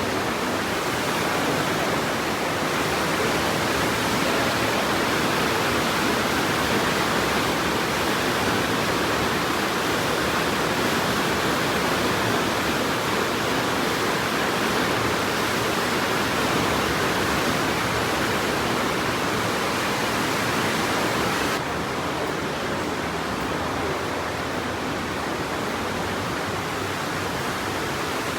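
The River Aare rushing through the narrow Aare Gorge, a steady roar of fast white water. About three quarters of the way through it suddenly turns a little quieter and duller.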